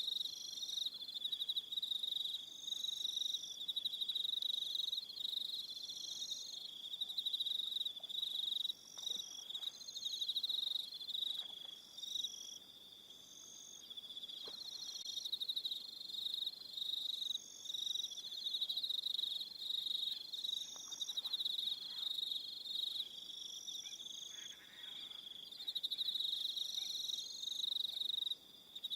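Crickets chirping in a dense evening chorus: a steady, high-pitched pulsing trill with shorter, higher chirps that come and go above it.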